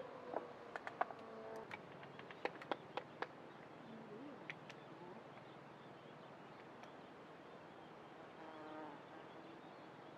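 Light clicks and knocks of tableware, a wooden plate and steel camping mugs, being handled on a wooden table in the first three seconds or so, then quiet outdoor ambience with a short faint buzz near the end.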